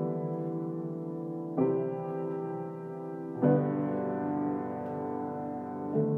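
Slow background music of sustained piano or keyboard chords, a new chord struck about every two seconds.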